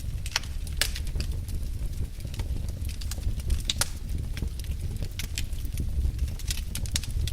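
Wood fire burning in a fireplace, crackling with irregular sharp pops over a steady low rumble of the flames.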